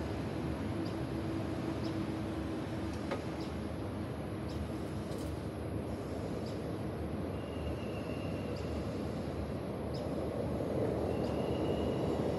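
Steady distant city traffic rumble heard from high up among apartment blocks, swelling a little near the end, with a few faint ticks and two brief thin high tones.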